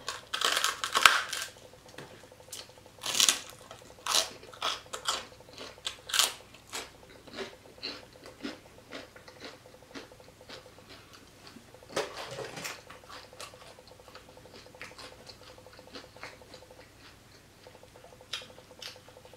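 Close-up crunchy chewing of fried pork rinds (chicharrón), with loud crackling bites in the first several seconds that thin out into softer, sparser crunches.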